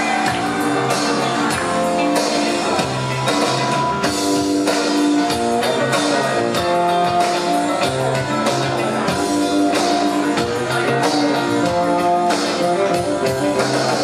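Instrumental music playing, the intro to a song.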